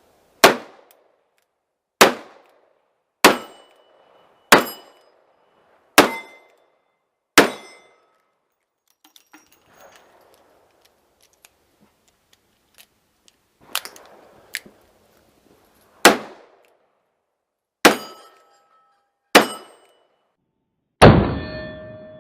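A string of gunshots from a shooting stage: six shots about a second and a half apart, a few seconds of quieter handling noises, then another five or six shots. The shots ring out with a metallic clang, and the last is followed by a lingering ring like a struck steel target.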